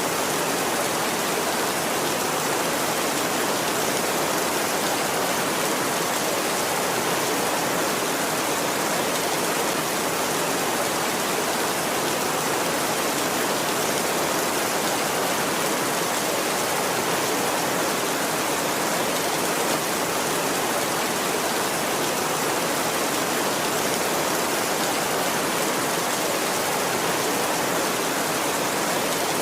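Heavy rain drumming steadily on a tin roof, an even, unbroken hiss.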